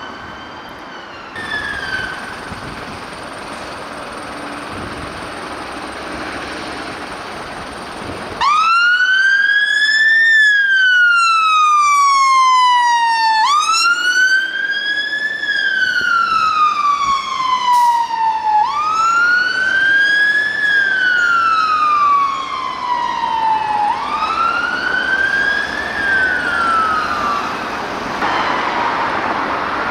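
Fire engine siren sounding a slow wail: it cuts in suddenly about eight seconds in, and each cycle rises for about two seconds and falls for about three, four times over, before stopping near the end. Before it there is steady road and engine noise, and a moment of another siren that cuts off right at the start.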